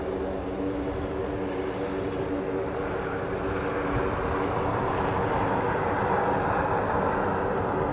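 The four Rolls-Royce AE 2100 turboprop engines of a Lockheed WC-130J Hercules are running on the runway. A steady propeller hum sits under a rushing noise that grows stronger from about three seconds in.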